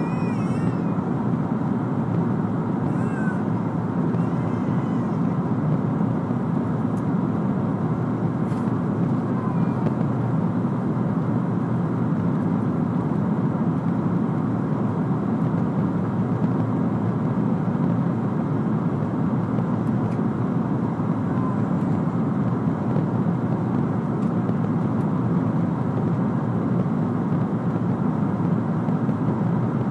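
Steady cabin noise of a Boeing 777-300ER in flight: the constant rush of airflow and GE90 engines heard from a window seat. A few faint, high, wavering cries sound over it near the start and again a few times later.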